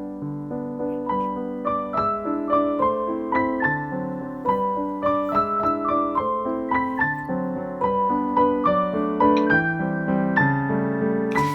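Background piano music: a gentle melody of separate notes over a steady accompaniment.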